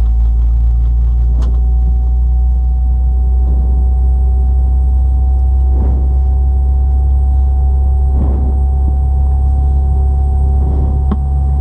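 Boeing 717 cabin noise: a steady low rumble with a constant whine over it, and a few faint knocks.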